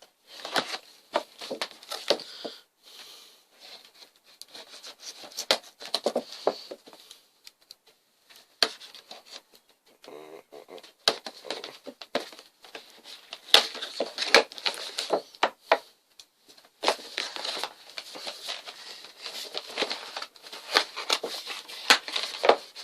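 Penknife cutting open a well-sealed cardboard toy box, with crinkling and tearing of the packaging: an uneven run of scratches, clicks and rustles broken by a few short pauses.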